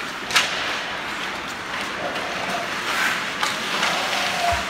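Ice hockey game in play: a steady wash of rink noise with a sharp knock just after the start, a few fainter clicks, and a low thud near the end.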